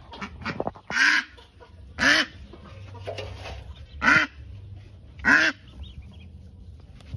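Mother duck quacking four times, loud and harsh, about a second or so apart, with faint peeping of ducklings between the calls.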